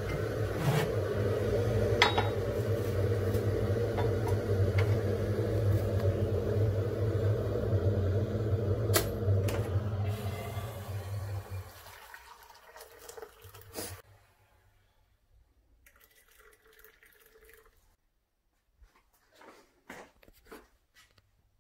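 Hot water from an electric kettle rushing steadily into a mug, with a few clinks of crockery, fading out about twelve seconds in. A sharp click follows, then faint small knocks of the mug and spoon.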